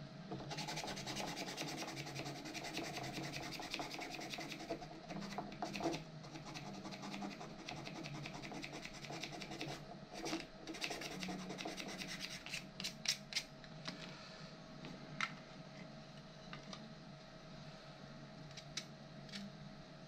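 A 3D-printed plastic part being smoothed by hand with fast, continuous rubbing strokes. About twelve seconds in, the rubbing stops and gives way to quieter, scattered clicks and light scrapes.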